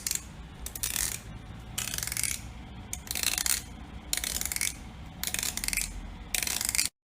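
A series of scratchy, rasping strokes, about one a second, over a faint low hum; it cuts off abruptly near the end.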